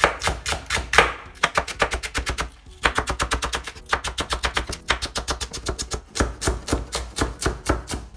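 Chef's knife thinly slicing scallions on a bamboo cutting board: fast, even chopping at about seven strokes a second, in runs broken by two short pauses.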